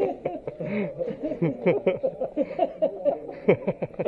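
Men laughing and chuckling in quick, choppy bursts, mixed with chatter.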